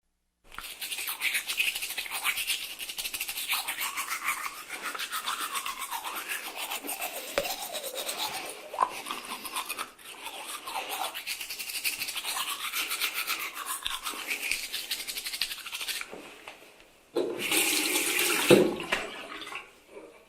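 A toothbrush scrubbing teeth in quick, continuous back-and-forth strokes. It fades out at about 16 seconds, and a louder, rougher burst follows from about 17 to 19 seconds.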